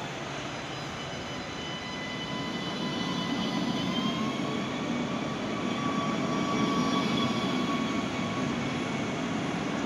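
Electric tram moving along the platform close by: the whine of its traction motors in several steady tones, which rise slightly about four seconds in, over a rumble of wheels that grows louder.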